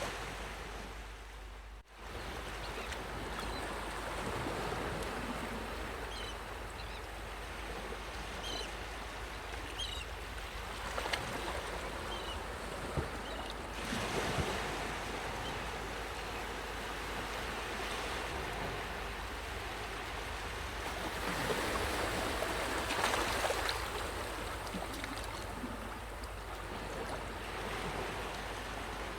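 Sea waves washing onto a beach: a steady rush of surf that swells louder in the middle and again in the last third, with a brief dropout about two seconds in.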